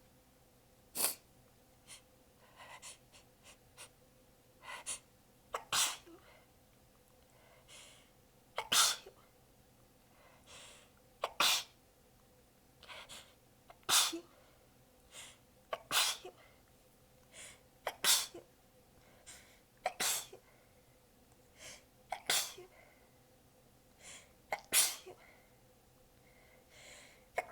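A woman in a sneezing fit, about eleven sharp sneezes coming every two to three seconds with quick, softer breaths and catches between them. The sneezes are partly stifled and sound weak from exhaustion and sore abs.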